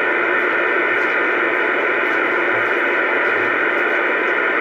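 Bearcat CB radio on AM channel 28 giving a steady hiss of static from its speaker, with no station coming through: the signal meter sits at its lowest bar.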